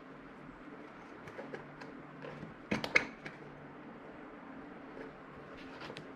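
Quiet handling of a car seat's cover on its frame, with a short cluster of light clicks about three seconds in and a few faint ticks near the end.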